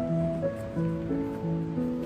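Background music: a plucked-string instrumental melody, with held notes changing about three times a second.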